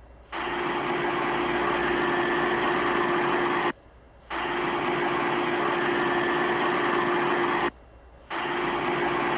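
Steady machine-like hum and hiss with one constant low tone. It cuts out sharply for about half a second roughly every four seconds.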